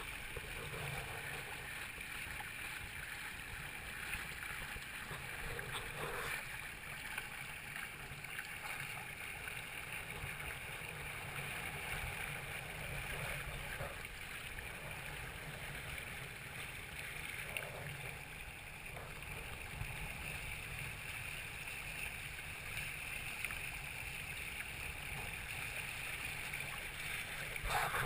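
Water rushing and gurgling along the hulls of a Hobie Tandem Island sailing trimaran kayak under sail, a steady wash heard through a GoPro's waterproof housing.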